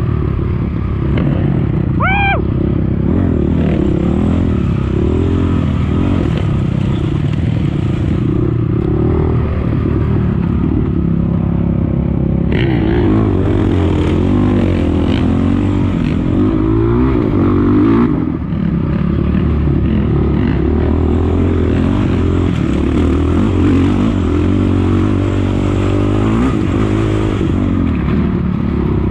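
Off-road dirt bike engine running hard and revving up and down as it races over rough ground, with rattling and clatter. There is a short high squeak about two seconds in.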